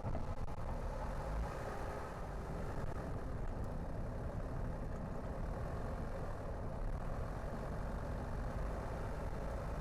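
A car on the move: steady engine and tyre noise with a strong low rumble, unchanging throughout.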